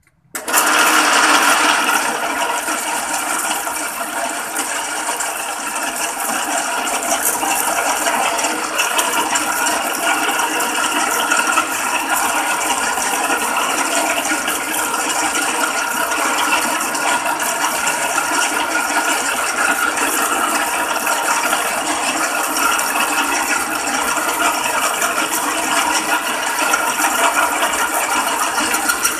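Small metal lathe starting abruptly about half a second in and running steadily, turning a PENN 950 SSm aluminium reel spool while the cutting tool takes corrosion off the spool wall.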